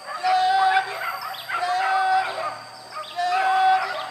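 Hunting dogs baying in a boar chase: long, drawn-out bays repeating about once a second, with several dogs calling over one another.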